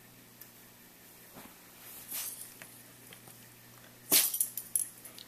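A dog sneezing: a softer, shorter burst about two seconds in, then one loud, sharp sneeze about four seconds in, followed by a few small clicks.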